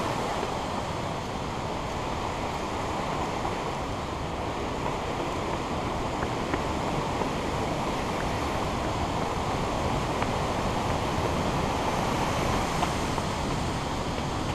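Steady rushing noise from wind buffeting a GoPro's microphone as it runs, mixed with a rushing whitewater creek.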